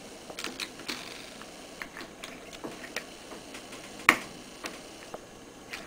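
Plastic boot covers being fitted onto EasyClick battery terminal connectors: a scatter of small clicks and handling taps, then one loud sharp click about four seconds in as a cover snaps into place.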